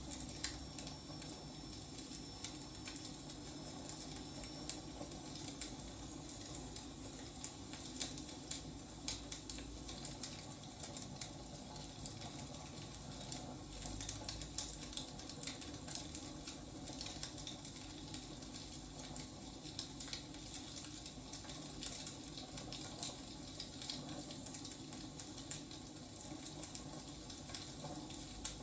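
Firewood burning: dense, irregular crackles and small pops over a soft, steady hiss.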